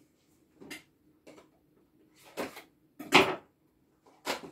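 Small cardboard box of dried calendula being opened by hand: five short rustles and scrapes of card and paper, the loudest about three seconds in.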